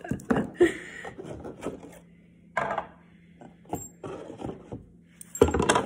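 Items being handled and lifted out of a cardboard gift box: a string of short taps, knocks and scrapes, loudest near the end.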